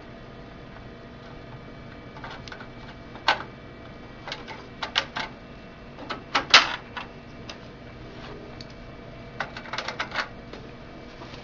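Scattered hard plastic clicks and light knocks in a few short clusters, as a separation roller is seated in a Dell 5110cn printer's paper tray and the plastic roller cover is pressed shut.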